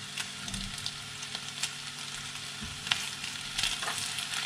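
Beef and spring onion sizzling in a frying pan as a utensil stirs them, with a steady hiss and a few sharp clicks of the utensil against the pan.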